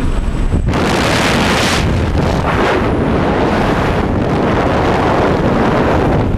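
Freefall wind rushing over the camera's microphone as the tandem skydivers drop out of the aircraft door. It is a loud, steady rush that fills in suddenly less than a second in and then holds even.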